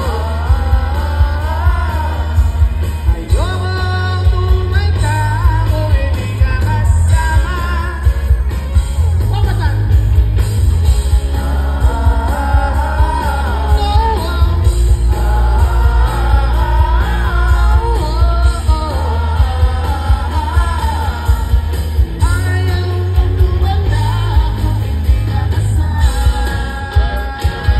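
Live rock band playing a song with a singer's voice over guitars and drums and a heavy bass, heard from within the concert crowd.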